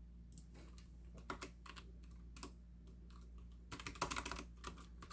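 Typing on a computer keyboard: scattered faint keystrokes, then a quick run of keys about four seconds in.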